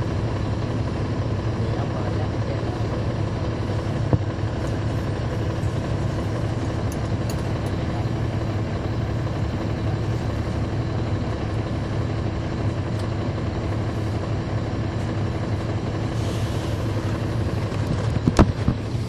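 A 2009 NABI 416.15 transit bus's Caterpillar C13 ACERT diesel engine running steadily with a constant low drone, heard from inside the cabin near the rear. Shortly before the end a sharp clack cuts through.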